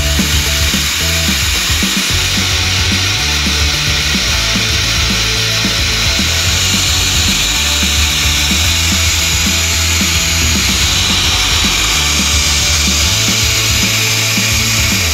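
Dog-grooming blow dryer running steadily, blowing air onto the coat as it is brushed out, over background music with a steady beat.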